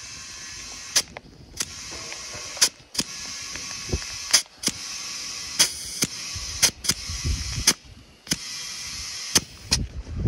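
Compressed air hissing into a soft quad bike tyre through an air-line tyre inflator, the hiss broken again and again by sharp clicks and short pauses, and stopping near the end.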